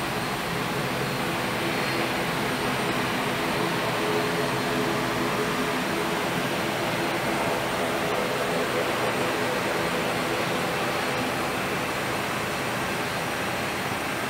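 Steady drone of jet aircraft engines on the airport apron, with a faint high whine.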